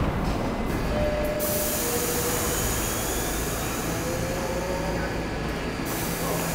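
R68 subway train at an underground station platform, pulling out: the steady rumble and hiss of the train, with a two-note falling door chime about a second in and a faint rising whine near the middle as it begins to move.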